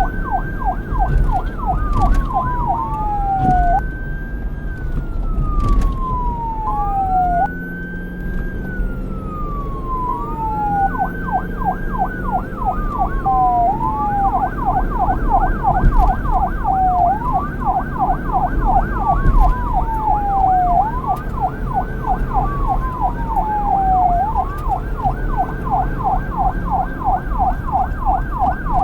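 Police car's electronic siren switching between a wail and a fast yelp. The wail rises and then falls slowly over about three seconds, and the yelp repeats its sweep several times a second. In the second half the yelp runs almost without a break, over a steady low rumble.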